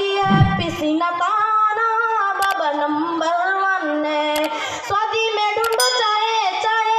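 A young female singer singing a song into a microphone, holding long notes that slide from one pitch to the next. A short low thump about half a second in.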